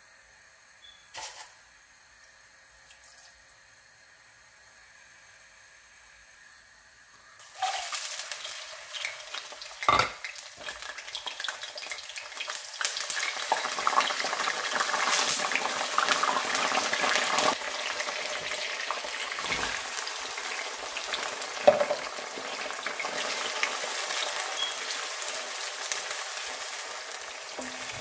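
Hot oil in a steel kadhai bursts into sizzling about seven seconds in as ingredients go into the pan, then keeps up a steady frying crackle. A couple of sharp knocks of a utensil against the pan come through the sizzle.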